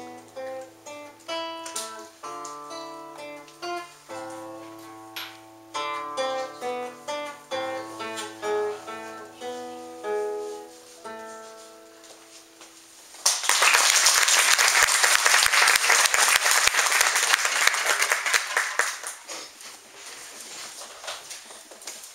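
A classical guitar playing a short etude: plucked melody notes over a moving bass line, ending with the last notes ringing out about twelve seconds in. The audience then applauds for about six seconds, the clapping thinning out near the end.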